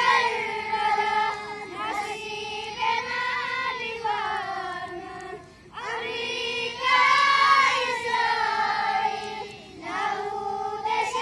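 A group of children chanting an Islamic supplication (dua) together in a sung, melodic recitation, in long phrases with brief pauses about five and ten seconds in.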